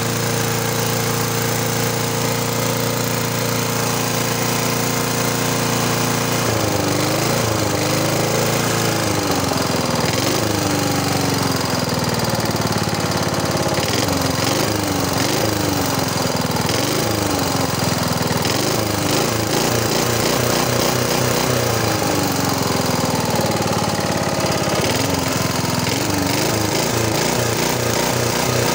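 Small lawn mower engine running with its air filter off. It idles steadily for about six seconds, then is revved up and down over and over, roughly every second or two, as the throttle linkage is worked by hand. It now revs out after the carburettor diaphragm repair, where before it died when revved.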